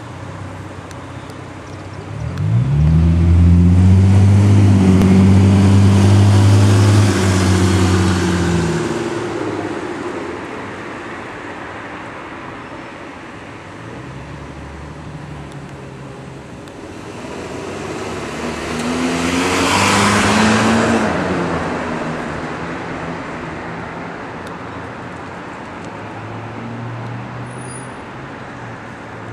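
Road traffic: a vehicle engine runs loud and close for about six seconds, its pitch rising as it starts up, then dying away. Later a car passes by, swelling and fading, and a fainter engine hum follows near the end.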